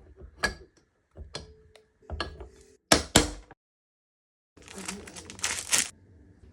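Hand work on metal engine parts: a few separate knocks and clicks, the loudest two in quick succession about three seconds in, then a second or so of rattling clatter.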